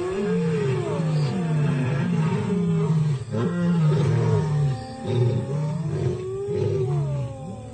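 Lions roaring at night in a run of deep roars repeating about every three-quarters of a second, with spotted hyena calls above them that glide up and down in pitch.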